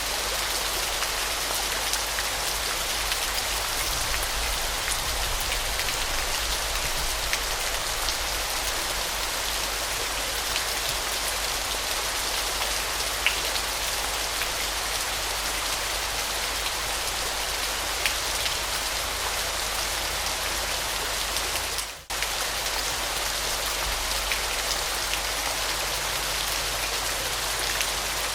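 Waterfall: a steady hiss of falling, splashing water, mostly high in pitch, with scattered small drop-like ticks. The sound briefly dips and cuts out about 22 seconds in, then resumes.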